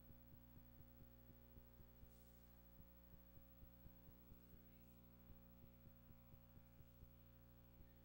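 Near silence: a faint steady electrical hum with soft ticks a few times a second, and no other sound.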